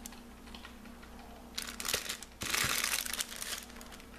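Clear plastic packaging crinkling as packs of mini wooden clips are handled, in a few bursts that are loudest for about a second near the middle, with a couple of light knocks.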